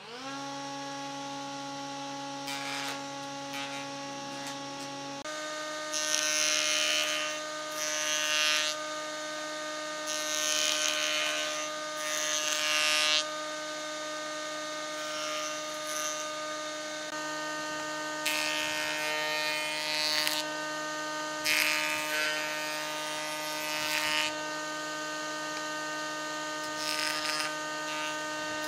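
Stationary woodworking machine's motor spinning up and running with a steady whine that steps to a new pitch about five seconds in. Over it, a curved wooden piece is pressed against the spinning cylinder in several passes, each a rasping hiss of wood being cut away.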